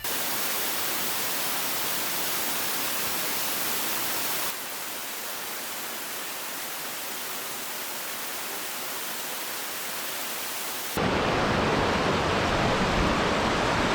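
Steady rushing noise, like falling water, in three stretches joined by sudden cuts. The last stretch, from about eleven seconds in, is louder and deeper.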